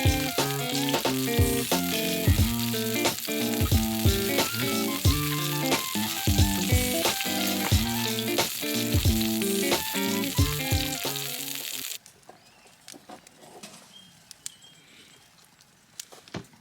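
Food frying and sizzling under background music with a steady beat. The music stops about twelve seconds in, leaving faint scattered crackles.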